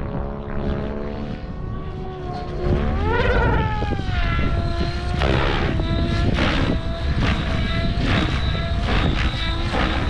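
OMPHOBBY M7 radio-controlled helicopter in flight, its rotor and motor whine swooping sharply up and down in pitch about three seconds in as it maneuvers, then holding steadier. From about three seconds in, strong wind rumbles on the microphone underneath.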